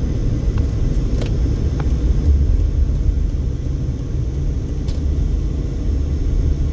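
Road noise inside a moving Mercedes-Benz car's cabin: a steady low rumble of tyres and engine while driving, with a few faint scattered ticks.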